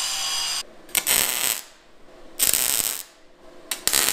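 A power tool's motor whine cuts off, then a MIG welder fires three short sputtering bursts, each about half a second, tack-welding a steel angle bracket.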